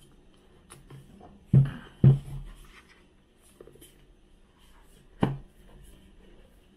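Hands struggling to open a stiff product box: light scraping and small clicks, with three dull knocks, two close together about a second and a half in and one more about five seconds in.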